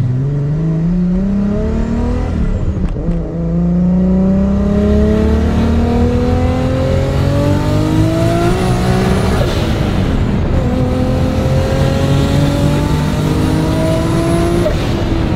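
Turbocharged Nissan RB26 straight-six in a Datsun 240Z accelerating hard through the gears. The revs climb, fall at an upshift about three seconds in, climb for about six seconds, fall at a second shift near ten seconds, and climb again.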